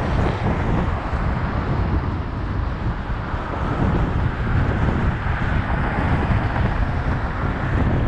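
Wind buffeting the microphone of a cyclist riding through city traffic, a steady rumble over the noise of passing street traffic.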